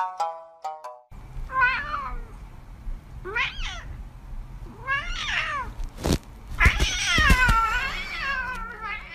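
A cat meowing four times, the calls spaced about a second and a half apart, the last one longer and rising and falling in pitch. A sharp knock comes just before the last meow.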